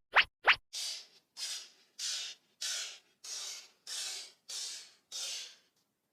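Two quick upward-gliding bloop chirps, then a regular run of eight short hissing whooshes, about three every two seconds, that stop about a second before the end.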